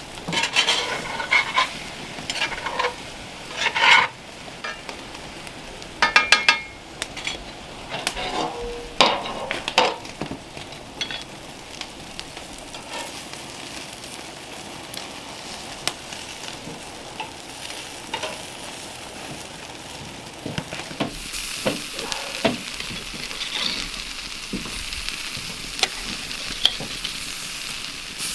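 Potatoes, onions and peppers frying in a cast iron skillet: the sizzle runs throughout while a utensil scrapes and knocks against the pan as they are stirred, busiest over the first ten seconds. The sizzle grows louder and steadier about three-quarters of the way through.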